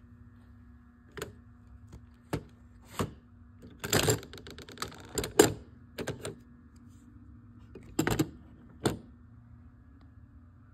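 Stained-glass suncatchers being handled and shifted on a table: a scatter of sharp clicks and clinks of glass and metal-edged panels knocking together. The clicks bunch up about four to five seconds in and again near eight seconds.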